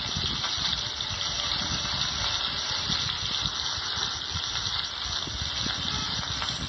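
Sliced bitter gourd frying in hot mustard oil in a pan: a steady sizzle with a continuous light crackle.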